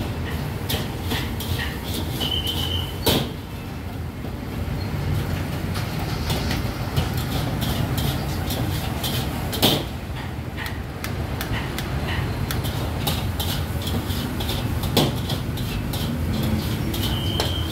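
Busy street-food market at night: a steady low rumble with frequent sharp clicks and clanks, three louder knocks and two short high beeps.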